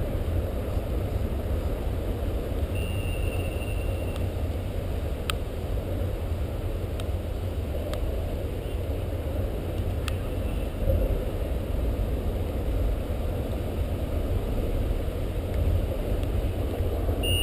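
Steady low outdoor rumble over a soccer pitch. One long, steady whistle blast about three seconds in lasts over a second. A few faint sharp knocks follow in the middle.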